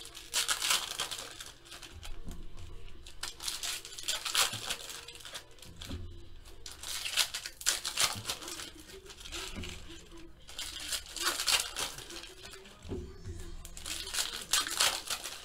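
Foil wrapper of a baseball card pack crinkling and tearing as it is pulled open by hand, in repeated bursts of rustling.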